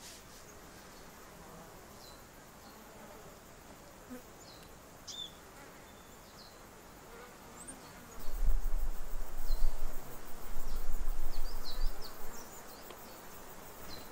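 Insects buzzing steadily, with a few short high chirps scattered through. From about eight seconds in, a louder deep rumble comes in for about five seconds, then drops away.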